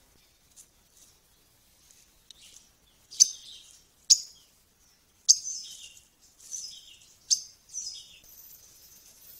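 Rufous-breasted leaftosser (vira-folha) giving sharp, loud, short call notes, about six over five seconds. From about eight seconds in, a steady high insect chirring.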